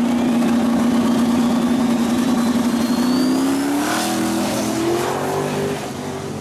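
Small-tire drag race cars, a New Edge Ford Mustang and a Fox-body Mustang, with engines held at a steady high pitch on the starting line. About three seconds in they launch, and the engine pitch climbs as they accelerate away down the track.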